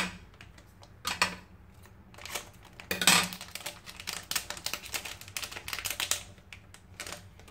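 Quick, irregular light clicks and taps of small electronic parts and wires being handled on a tabletop, with louder knocks about one and three seconds in and a dense run of ticks in the middle.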